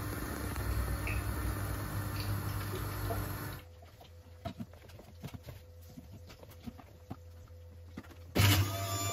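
Pieces of apple and carrot clicking and knocking lightly as they are dropped by hand into the plastic feed chute of a Bosch electric juicer. Near the end the juicer's motor switches on suddenly and runs with a steady hum, the loudest sound here.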